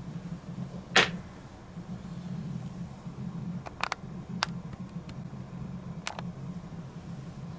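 Fingerboard clacking on a wooden desktop: one loud sharp clack about a second in, then a quick double click, a single click and another click later as the board lands and rolls, over a steady low hum.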